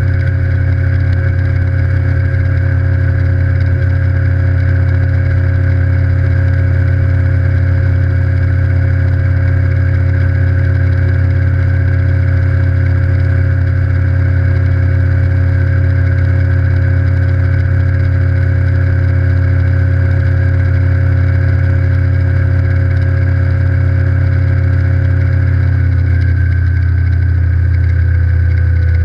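Evinrude E-TEC G2 150 HO outboard, a direct-injected two-stroke V6, running steadily under load with the boat planing. Its pitch drops slightly near the end.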